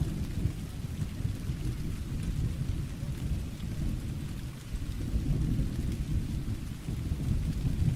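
Thunderstorm: a continuous low rumble of rolling thunder that swells and eases without a sharp crack, over faint rain.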